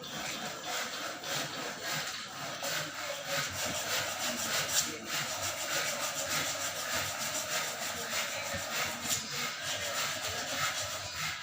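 Steady back-and-forth hand scraping strokes on a hard surface, rough and scratchy, as in restoration work by hand.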